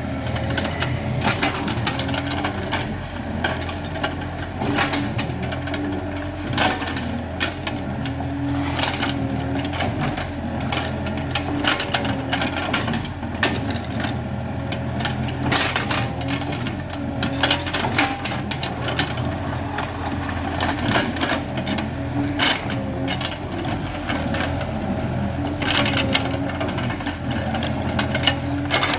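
Excavator's diesel engine running steadily under work, with frequent sharp knocks scattered through it.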